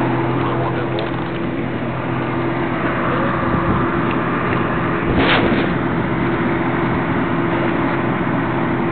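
Steady drone of fire engines' diesel engines running, holding an even pitch, with a single sharp crack about five seconds in.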